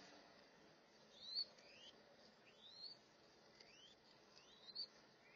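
Mourning dove chicks giving thin, high, rising 'thweet' squeaks, about five of them spread over a few seconds, as they beg while a parent feeds them.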